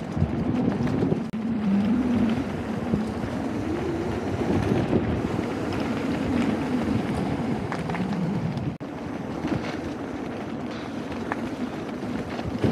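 Wind rushing over the camera microphone while riding a mountain bike, with a wavering low rumble underneath and a brief drop in level late on.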